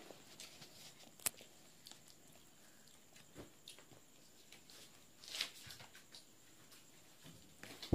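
Faint clicks and rustles of small children eating by hand: fingers and plastic spoons working at rice and fried chicken in paper food boxes, with a sharper click about a second in, a brief rustle past five seconds, and a louder thump at the very end.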